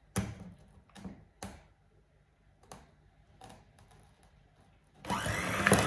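A few light clicks and taps while an electric hand mixer with wire beaters is handled over a bowl, then about five seconds in the mixer is switched on and runs loud, beating flour and butter.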